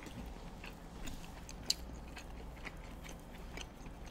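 Quiet chewing of cheesy spaghetti squash with chicken close to the microphone, with small wet mouth clicks scattered through and one sharper click a little under two seconds in.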